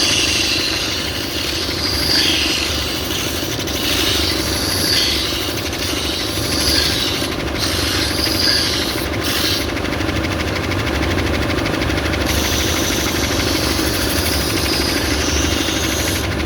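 Stationary belt sander running, with a piece of wood pressed against the moving belt to round off a corner. A steady motor hum lies under a hiss of sandpaper on wood that swells and eases as the piece is worked, dropping away a few times in the middle.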